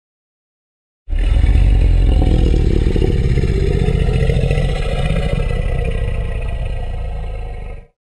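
Custom-made Tyrannosaurus rex roar sound effect: a single long, deep roar that starts about a second in, lasts about seven seconds, tapers a little and then cuts off.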